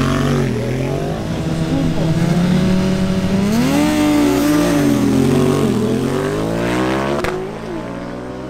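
Drag-racing motorcycle engines revving in repeated blips, the pitch climbing and falling, then rising more steadily in the last couple of seconds. There is a sharp click about seven seconds in.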